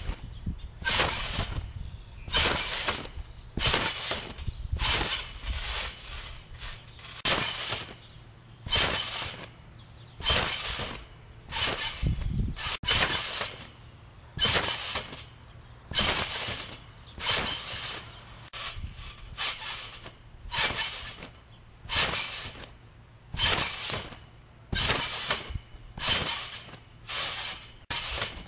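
Round backyard trampoline's springs and mat creaking and thudding with each bounce, about once a second, as a jumper bounces repeatedly.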